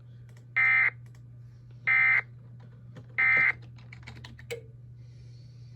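Emergency Alert System end-of-message data bursts from NOAA Weather Radio: three short, identical, harsh buzzing data bursts about a second and a third apart, over a steady low hum, with a few faint clicks after the third.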